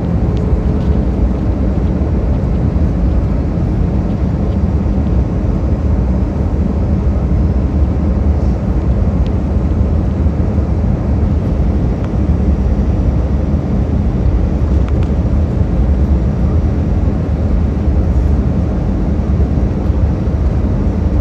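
Steady cabin noise inside an Airbus A319 jet airliner on approach: a deep, even rumble of the engines and the air rushing past the fuselage.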